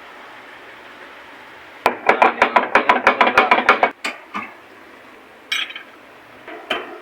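A rapid run of sharp metallic clanks, about seven a second for two seconds, followed by a few single knocks.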